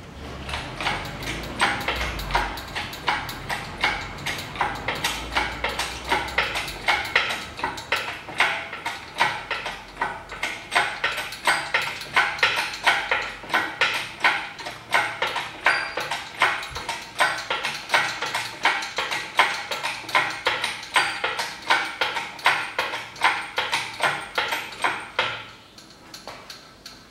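Engine crane being worked stroke by stroke to hoist a car engine out of its bay: a steady rhythm of sharp clacks, about two a second, that stops a couple of seconds before the end.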